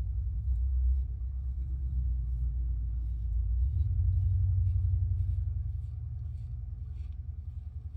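A low rumble, with faint, irregular scraping strokes of a Kampfe Bros. Star single-edge safety razor cutting lathered stubble. The rumble deepens and becomes more pulsing about halfway through.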